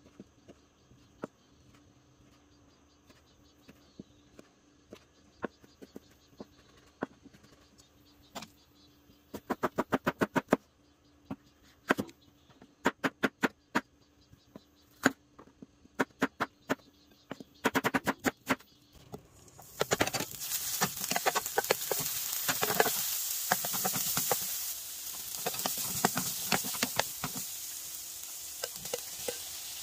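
Knife cutting on a cutting board: scattered single cuts, then quick runs of chopping strokes. About two-thirds of the way through, sliced vegetables start sizzling in a hot frying pan, with the clicks of a wooden spatula stirring them.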